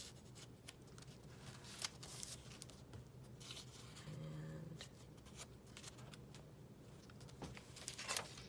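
Faint paper rustling with soft taps and clicks: a sheet of decorative paper being pressed into a folded book page, and the book's pages being lifted and handled.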